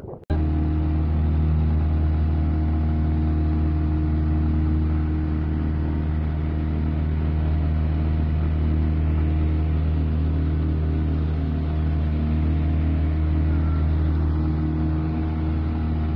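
Outboard motor running steadily as the boat travels at speed, a constant low drone. The sound cuts in suddenly just after the start.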